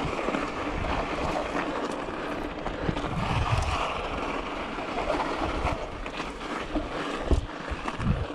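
Yeti SB6 mountain bike riding fast down a dirt singletrack: a steady rush of wind over the microphone mixed with tyre noise on the dirt, with a few low thuds from bumps about three seconds in and twice near the end.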